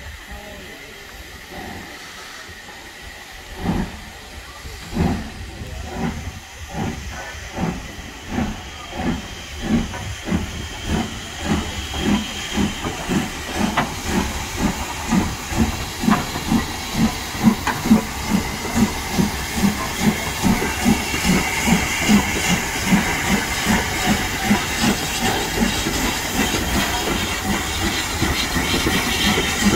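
Steam locomotive 30541, a Southern Railway Q class 0-6-0, starting a train. Its exhaust chuffs begin a few seconds in, slow at first, then quicken steadily as it gathers speed, over a hiss of steam. Near the end the beats run together into a steady rush.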